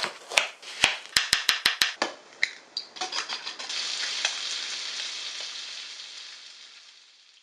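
A few sharp clicks and clinks, including a quick run of about six evenly spaced ticks, then food sizzling in a hot pan, which swells and then fades out.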